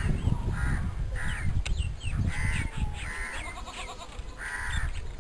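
Crows cawing repeatedly, about six short, harsh calls, with smaller birds chirping faintly higher up. A low rumble runs underneath, and the sound cuts off abruptly at the end.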